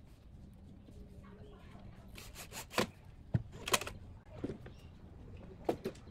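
Several separate sharp wooden knocks and clacks as boards and a cordless drill are handled and set against a pine frame, a pair of them close together near the end; no drill runs.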